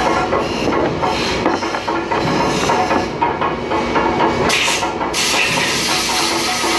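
Busy factory work noise: steady mechanical clatter with many small knocks. A brief hiss comes about four and a half seconds in, and a louder, longer hiss starts about five seconds in.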